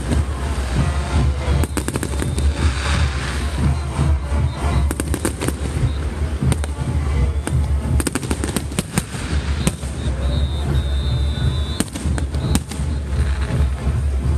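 Aerial fireworks bursting overhead, sharp bangs and crackles coming in clusters, with music playing underneath.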